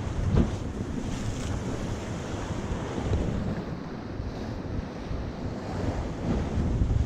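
Wind buffeting the microphone over waves washing against shore rocks, with a short thump about half a second in.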